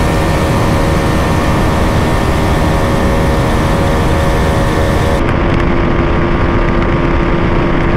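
Motorcycle engines running at speed in a drag race, with wind rushing over the microphone. About five seconds in, the wind hiss drops away abruptly and a different steady engine note takes over.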